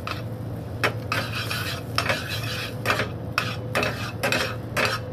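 Metal tongs stirring melted butter and chopped cilantro in a stainless steel frying pan over a gas burner, the butter sizzling and the tongs clinking against the pan at irregular intervals, about once a second, over a steady low hum.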